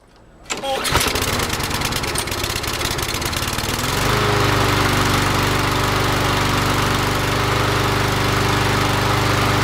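Briggs & Stratton 675 EX 190cc engine on a walk-behind lawn mower starting after carburetor service. It catches within the first second and runs rough and uneven for a few seconds. About four seconds in it settles to a steady, louder run.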